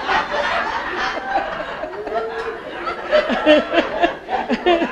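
People laughing, among them a woman laughing into a hand-held microphone.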